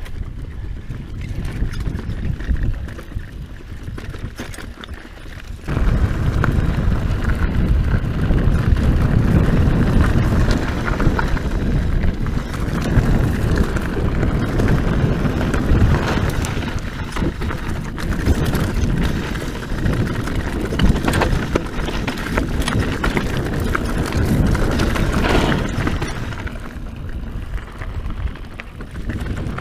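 Scott Genius mountain bike riding fast down a rough dirt trail: wind rumbling on the camera microphone over the crunch and rattle of tyres and bike on rocks and ruts, with many small knocks. About six seconds in the wind rumble jumps suddenly much louder and stays loud.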